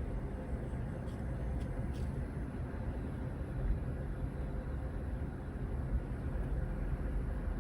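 Steady low rumble of background noise with a faint hum, and three faint ticks about a second in.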